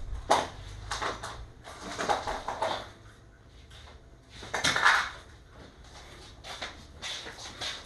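A run of irregular knocks and clatters, with the loudest a little under five seconds in.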